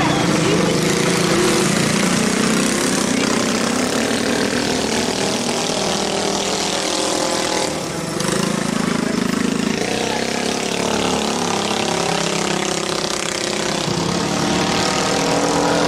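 Minibike engines racing, their pitch rising and falling as the bikes accelerate and ease off around the bend. One bike passes close about eight seconds in.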